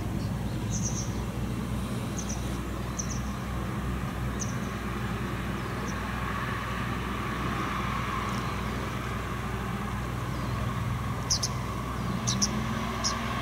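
Steady low engine hum in the distance, with a wider rush of noise that swells and fades in the middle. Short high chirps come and go, more of them near the end.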